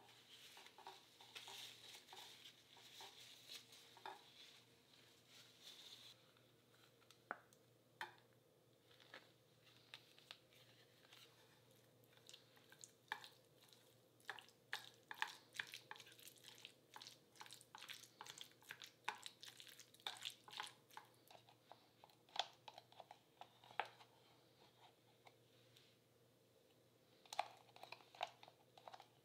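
Faint kitchen sounds of egg-salad making: a paper towel rustling as chopped boiled eggs are tipped into a stainless steel bowl, then a fork stirring the eggs with mayonnaise, with soft squishing and quick clicks and taps against the bowl.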